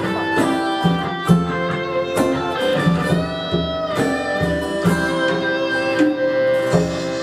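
Guitars playing an instrumental break of a folk song: steadily strummed chords with held lead notes over them.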